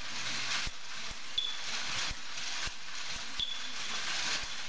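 Motor-driven metal kinetic sculptures running: irregular light clicks and knocks from their mechanisms over a steady hiss, with a short high squeak twice, about two seconds apart.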